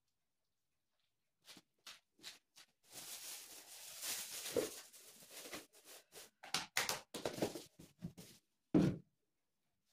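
Dishwashing at a kitchen sink: dishes and utensils clinking and knocking, with a tap running for a couple of seconds in the middle and a heavier knock near the end.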